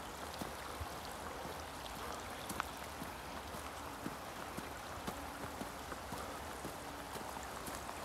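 Steady rush of flowing stream water, with faint scattered footsteps of someone walking on the path.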